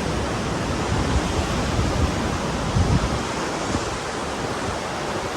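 Steady rush of ocean surf with wind buffeting the microphone in uneven low gusts.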